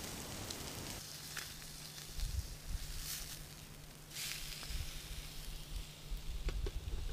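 Fish sizzling in a small frying pan for about the first second, then cutting off abruptly. After that, wind rumbles on the microphone, with scattered light clicks and two short hissing spurts.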